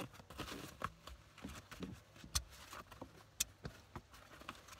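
Hands rummaging through the contents of a backpack's unzipped admin pouch: light rustling with scattered small clicks and taps, two sharper clicks about two and a half and three and a half seconds in.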